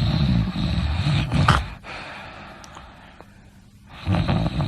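A sleeping person snoring: two loud, rattling snoring breaths about four seconds apart. The first lasts nearly two seconds and ends in a short snort; the second starts near the end.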